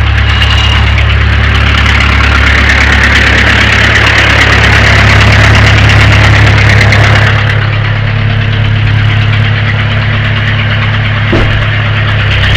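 Backhoe engine running, louder and harder for the first seven seconds or so, then easing back to a steadier, quieter run; a single short click near the end.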